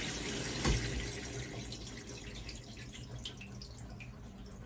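Minicle micro-bubble shower water spraying with a steady hiss and a single knock about a second in. The spray then fades to scattered drips.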